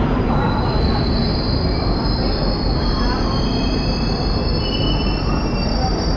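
Passenger train's wheels squealing as it slows into the station: several long, high-pitched squeals over a steady rumble, with more squealing tones joining about three seconds in.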